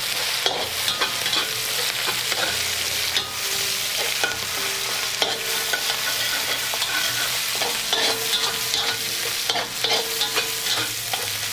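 Minced beef and doubanjiang (broad bean chili paste) sizzling in oil in an iron wok, stir-fried with a metal ladle that scrapes and clacks against the wok again and again. The paste is being fried until crisp and fragrant.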